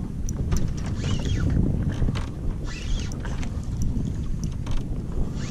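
Wind rushing on the microphone over water and small-boat noise at sea, steady throughout, with scattered light clicks.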